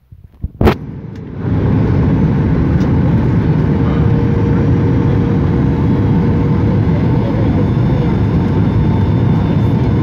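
Passenger jet cabin noise heard at the window: a sharp click, then from about a second and a half in, a loud, steady engine and airflow noise with a faint steady hum on top.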